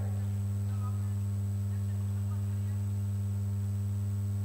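Steady low electrical mains hum, unchanging in level, with a faint steady high-pitched whine above it.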